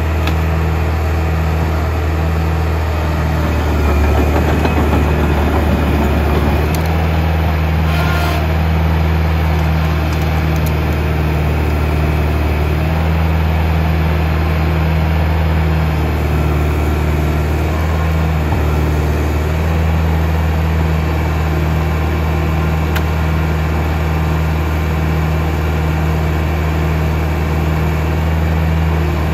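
Track loader's diesel engine running steadily, with a deep even hum, louder and rougher for about two seconds around four seconds in.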